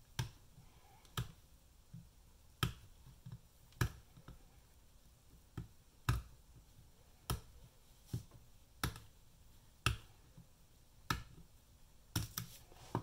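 Small screwdriver prying at the battery's plastic plug on a UE Roll speaker's circuit board to disconnect it, giving a string of sharp little clicks, roughly one a second at uneven spacing.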